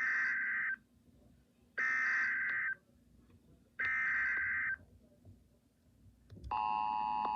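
Emergency Alert System opening: three one-second bursts of warbling digital data tones (the SAME header), then, about six and a half seconds in, the steady two-tone attention signal starts.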